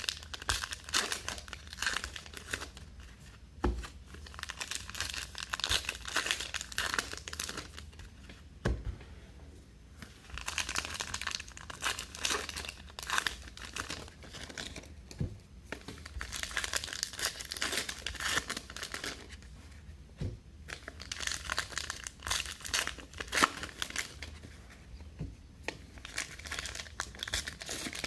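Trading card pack wrappers being torn open and crinkled, pack after pack, in clusters of crackling with brief lulls every few seconds.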